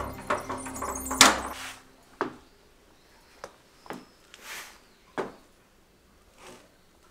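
Background music stops in the first two seconds, with a loud sharp clack just before it ends. Then come about six separate knocks and clunks, roughly one a second, from work around a wheeled lift table holding a removed kei truck manual transmission.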